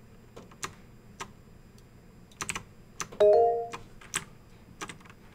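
Scattered clicks of a computer keyboard and mouse while an image is copied and pasted, with a short two-note electronic chime about three seconds in.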